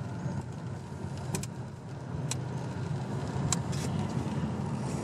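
Car driving, heard from inside the cabin: a steady low rumble of engine and tyres on the road, with a few sharp clicks scattered through it.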